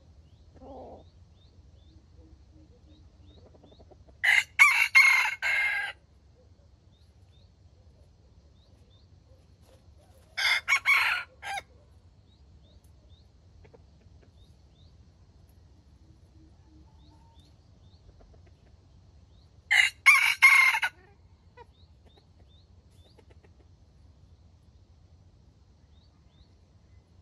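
A red junglefowl rooster crows three times, each a short, harsh cock-a-doodle-doo of about a second and a half, spaced several seconds apart. Faint chirps from small birds are heard between the crows.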